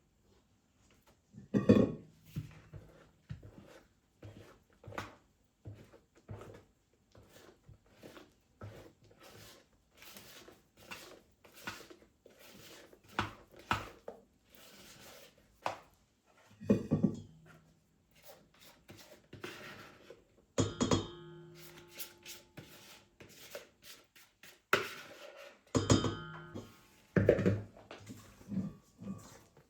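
Irregular knocks, taps and thunks of objects being handled, with a ringing clink about 21 seconds in.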